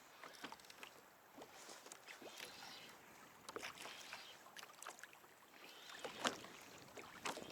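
Scattered light clicks and knocks on a fishing kayak over faint water noise while a fish is being landed, with two louder knocks near the end.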